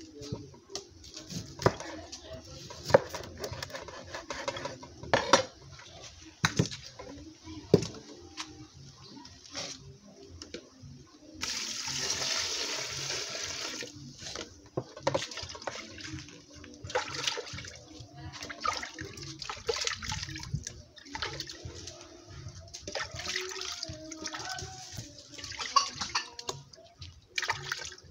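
Knife chopping mackerel on a wooden cutting board: a run of sharp knocks. About eleven seconds in, water is poured from a plastic bowl into an aluminium pot for about three seconds, then hands slosh and splash in the water in the pot.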